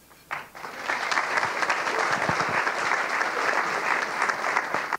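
Audience applauding. It starts within the first second, builds quickly to a steady clapping, and then cuts off abruptly.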